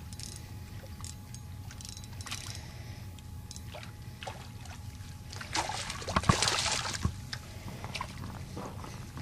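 Water sloshing and splashing at the shoreline, with scattered small clicks and a louder splash about six seconds in.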